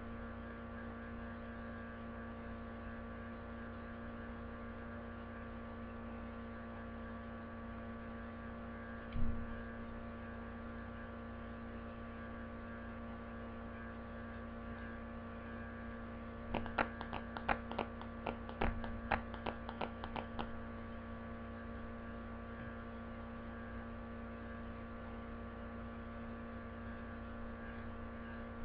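Steady electrical mains hum in the recording, made of several steady pitches at once. About nine seconds in there is a single knock, and from about 16 to 20 seconds a quick run of a dozen or so clicks and taps.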